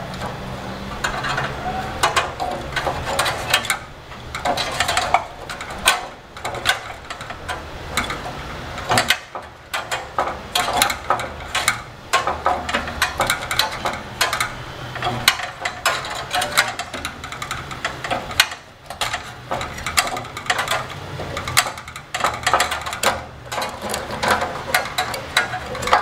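A mini tube cutter turned round and round a copper refrigerant pipe on an air-conditioner compressor line, making an uneven run of metallic clicks and scrapes as its wheel scores through the copper.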